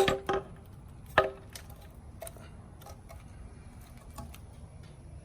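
Hand tools and metal engine parts clinking and knocking as they are handled during engine disassembly, with a loud knock at the start and a sharp click about a second in, then a few fainter clicks.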